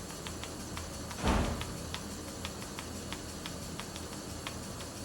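Neonatal high-frequency oscillatory ventilator running in HFO mode, its piston oscillator giving a steady low hum with regular ticks a few times a second. One louder thump a little over a second in.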